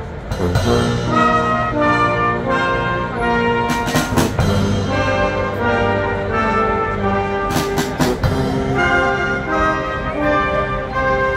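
Military brass band playing a tune outdoors, brass carrying the melody over drums, with two loud percussion crashes about four and eight seconds in.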